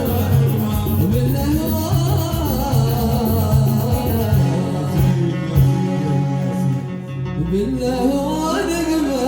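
Yemeni wedding zaffa song: singing over electronic keyboard accompaniment with a steady beat. The beat drops out about seven seconds in while the melody carries on and climbs.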